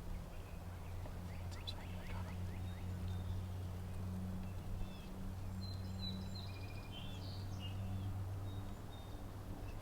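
Birds calling over a steady low drone: a quick run of sliding calls about two seconds in, then scattered chirps and whistles.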